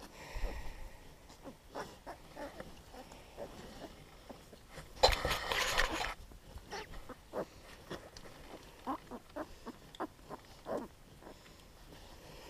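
Newborn piglets and the farrowing sow making short grunts and squeaks scattered through, amid rustling of towels and straw bedding. About five seconds in comes a loud rustle lasting about a second.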